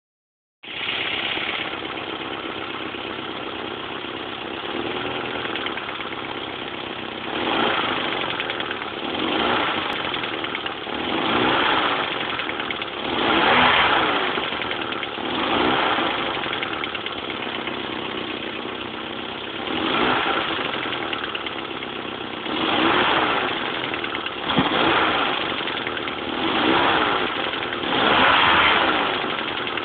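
Toyota MR2 Turbo's 3S-GTE turbocharged four-cylinder engine idling, then briefly revved again and again, every two to three seconds, each rev rising and falling. The owner suspects a spun bearing and rod knock.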